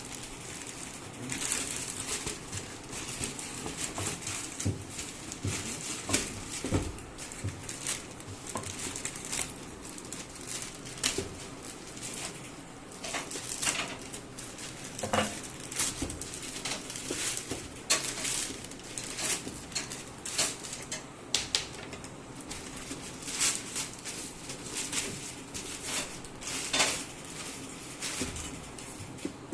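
A shoebox and its packing being handled and opened by hand: irregular rustling, crinkling and light tapping and scraping.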